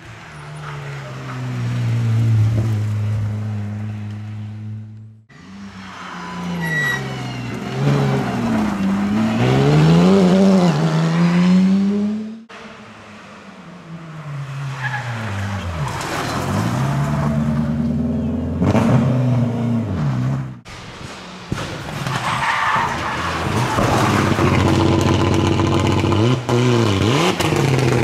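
Rally cars taking a tight corner one after another. Each engine revs high, falls in pitch as the car slows into the corner, then climbs again as it accelerates out. The sound cuts abruptly from one car to the next several times.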